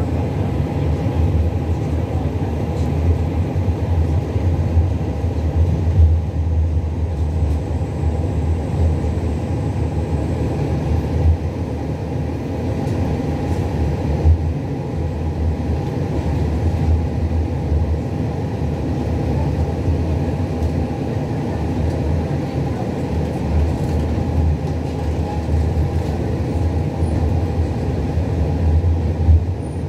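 Škoda 15T low-floor tram running along the street, heard from inside the passenger cabin: a steady rumble of wheels on rails and running gear, with a few short knocks.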